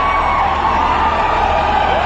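Large crowd cheering and shouting without a break.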